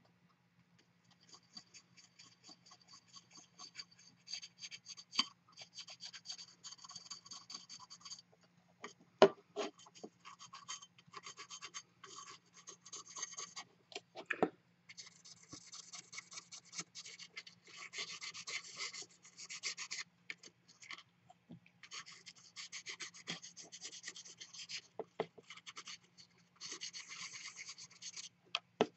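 400-grit sandpaper rubbed in quick short strokes over the hardened middle-coat lacquer filling a chip on a porcelain bowl's rim. This is the final sanding before the red and gold coats. It gives a fine, dry scratching in spells of a few seconds, broken by a few sharp clicks, the loudest about nine seconds in.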